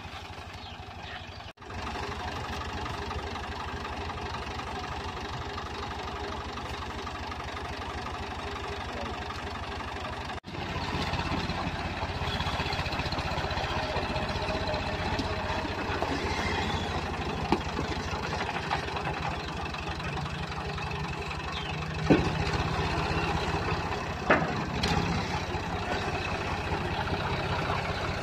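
Ford 4000 farm tractor's engine running steadily, getting louder about a third of the way in. A couple of sharp knocks stand out near the end.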